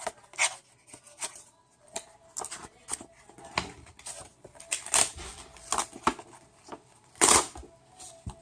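A folded paper poster being pulled out and unfolded: a series of short crisp paper rustles, the loudest about seven seconds in.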